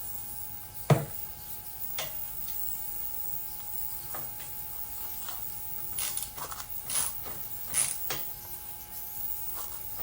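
Hand tools working bolts on a tractor being dismantled: a sharp metal knock about a second in, then scattered clicks and clinks, several of them close together in the second half.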